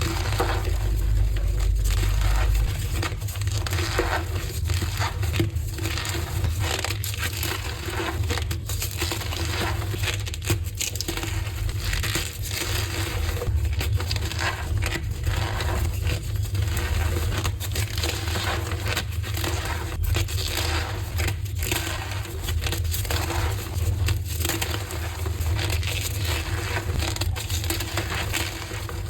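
Blocks of reformed gym chalk being crushed and crumbled, a dense run of crunching and crackling that goes on without a break.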